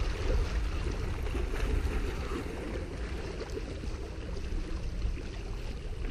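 Steady low rumble of wind on the microphone, with water washing against the rocks of a stone jetty.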